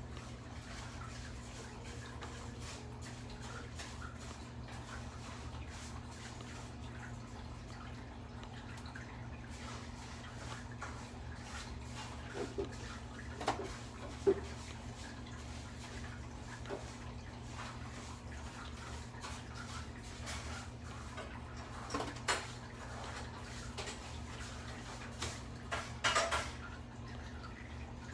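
Juvenile Nile monitor lizard feeding and shifting in wood-chip bedding: scattered small wet clicks and snaps, a few louder ones about halfway through and near the end, over a steady low hum.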